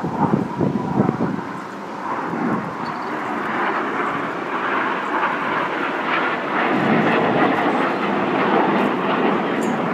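Jet engines of a formation of Red Arrows BAE Hawk jets flying past: a wide roar that builds over the first couple of seconds and then holds loud. Wind buffets the microphone in the first second.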